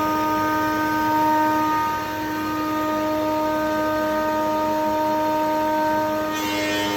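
Timber-milling machine running with a steady, pitched whine. A brighter hiss joins in near the end.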